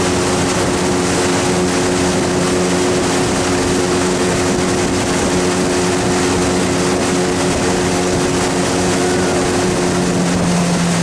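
Outboard motor of a coaching launch running steadily at cruising speed, over a hiss of water and wind; near the end the engine note drops a little as it throttles back.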